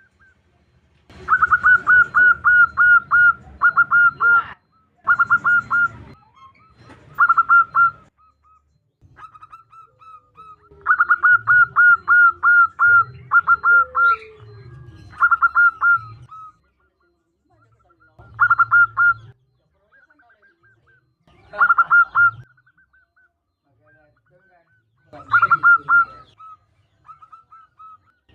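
Zebra dove (perkutut) calling in bursts of rapid staccato cooing notes, each burst about one to three seconds long, with softer single notes between. It is a female's call to draw a male.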